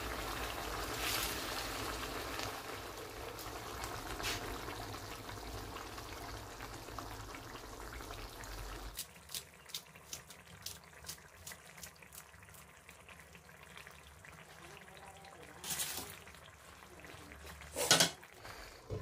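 Spicy fish gravy bubbling at a simmer in a kadhai, over a steady low hum. About halfway through the sound drops abruptly to faint light ticking, and two sharp knocks come near the end.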